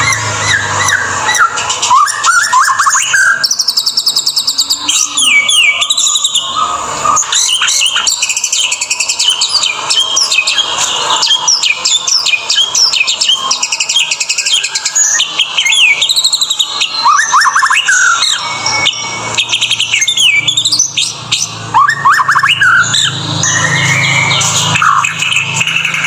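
White-rumped shama (murai batu) singing a long, varied song of fast trills and rising and falling whistled phrases, almost without a break.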